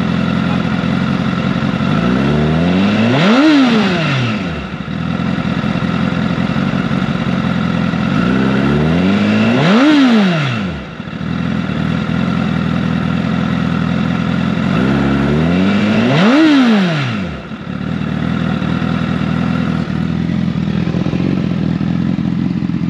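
2017 Honda CBR1000RR's inline-four engine idling through an M4 Street Slayer carbon-fibre exhaust, revved three times at about six-second intervals; each rev climbs and drops back to idle within about two seconds.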